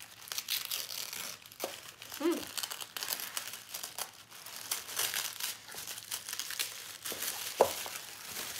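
Tissue paper crinkling and rustling in irregular crackles as a wrapped bundle is opened by hand. One short, sharper tap stands out near the end.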